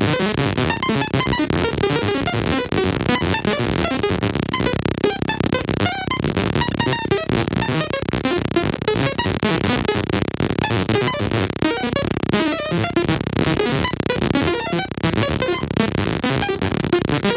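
Synthesized 'computer doing calculations' sound effect: a dense, rapid, unbroken jumble of short electronic blips and clicks at a steady level.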